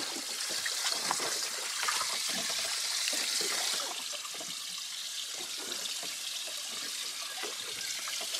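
Water trickling and splashing in a boat's open livewell, with a few light knocks. The water sound eases slightly about four seconds in.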